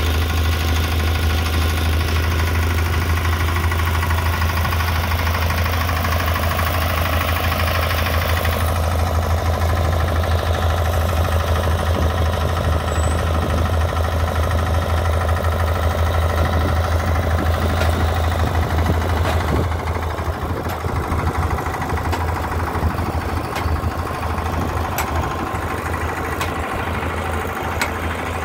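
Farmtrac tractor-mounted borewell drilling rig running, its engine making a steady, strong low hum. The sound gets a little quieter about twenty seconds in.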